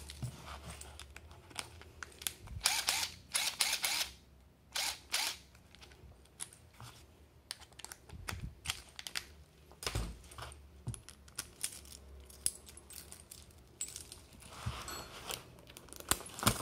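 Hand tools and driver bits being handled at a tool belt: scattered small clicks and clinks of metal, with a few short stretches of rustling from the belt's pouches.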